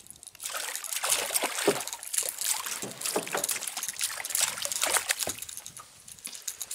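Hooked perch thrashing at the water's surface beside the boat, a run of irregular splashes that dies down near the end.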